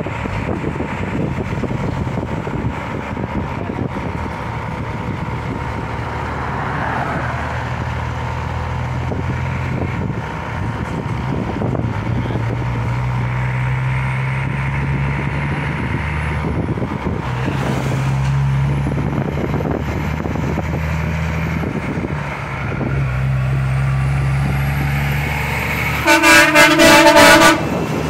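Diesel tractor-trailer engine running under load as the truck approaches and passes; the engine note breaks off briefly twice, and a faint high whistle rises a few times. Near the end, a loud air horn blast lasting about a second and a half.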